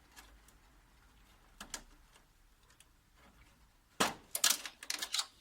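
A faint click, then near the end a quick cluster of sharp plastic clicks and rattles as a wiring connector is unplugged and cables are pulled free inside a copier.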